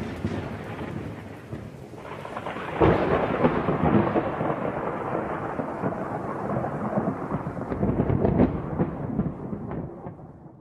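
Thunderstorm sound effect: thunder rumbling over rain. A new rumble swells up about three seconds in and slowly dies away, fading out near the end.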